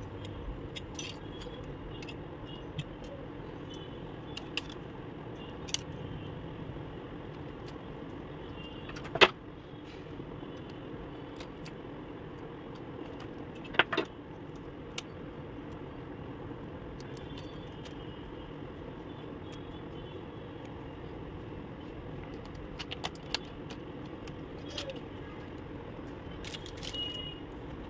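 A few sharp clicks and knocks over a steady background hum; the two loudest come about nine and fourteen seconds in.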